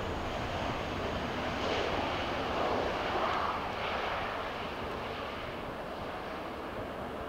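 Jet engine noise from a landing Boeing 737 MAX 8-200 with CFM LEAP-1B engines: a steady rushing sound that swells about two to three seconds in and then gradually eases off.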